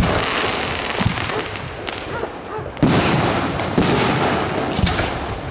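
Aerial fireworks bursting overhead in quick succession, about one sharp bang a second, with dense crackling from the shells' crackle effects in between.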